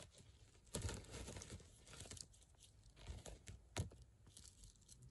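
Small plastic toy figures being handled and set out on a fabric surface: faint, irregular rustling and scraping with scattered light clicks, one sharper click nearly four seconds in.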